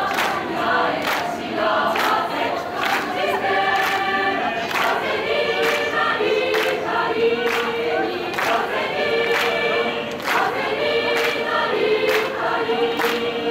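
A large mixed choir of student wind band members singing sustained chords, with a sharp percussive beat about twice a second.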